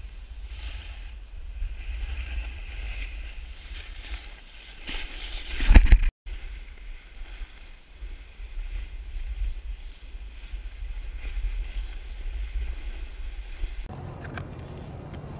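Wind rumbling on a GoPro Hero3+ microphone over the hiss of a snowboard sliding and scraping on packed snow as it runs downhill, loudest just before the sound cuts out briefly about six seconds in. Near the end the rush gives way to a quieter steady outdoor hum.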